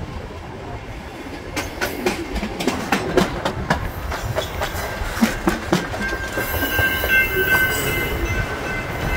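Passenger train wheels rolling on the rails with a steady rumble, clicking and clacking over rail joints from about a second and a half in. About six and a half seconds in, a steady high wheel squeal joins as the train rounds a curve.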